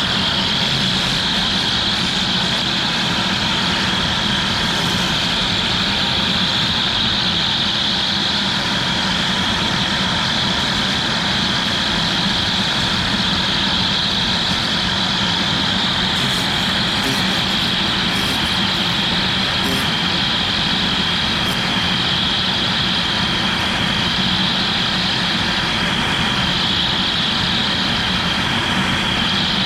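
CNC router spindle running steadily while the bit cuts PVC: a constant high whine over a steady rush of cutting and machine noise.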